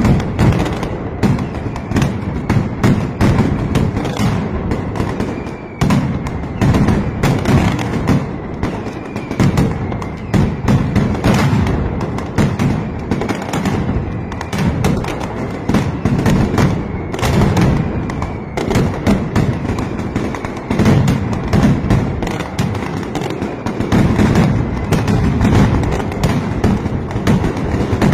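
Mascletà: a dense, unbroken barrage of masclets, ground-level firecrackers, going off many to the second, the barrage surging and easing in waves.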